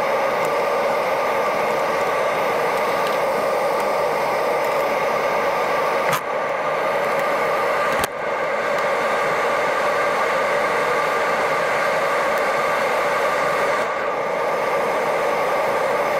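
Loud, steady hum and rush of a running machine, with two brief dips about six and eight seconds in.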